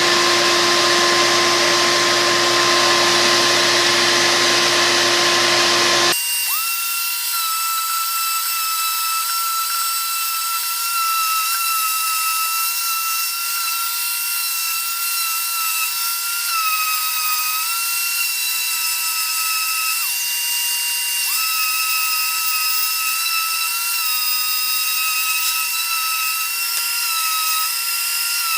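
Ridgid 5-inch random orbital sander running on wood with a 60-grit disc. About six seconds in the sound changes abruptly to a thinner, higher whine with no low end, its pitch dipping briefly and recovering every few seconds as the sander is pressed and moved.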